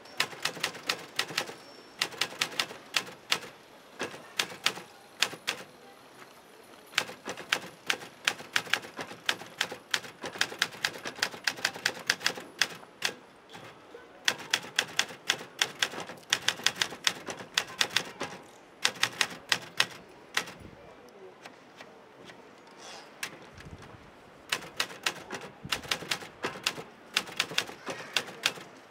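Portable typewriter being typed on: quick runs of sharp keystroke clacks, broken by short pauses and one longer lull a little past the middle.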